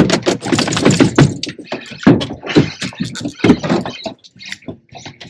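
A rapid, irregular run of knocks and clattering thumps, loudest for the first four seconds and thinning out near the end.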